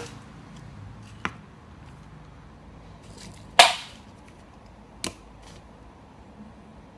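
Three short, sharp knocks over a quiet background, the middle one the loudest.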